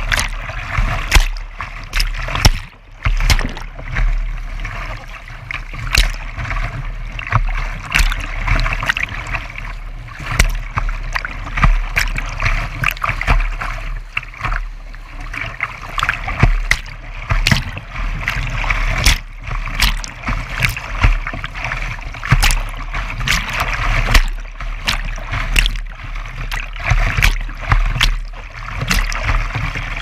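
Whitewater rapids rushing around a kayak, with waves breaking over its bow in frequent sharp splashes over a steady low rumble.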